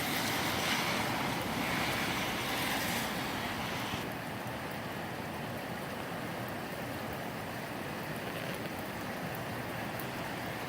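Gusty wind rushing strongly, then easing suddenly about four seconds in to a steadier, lower rush.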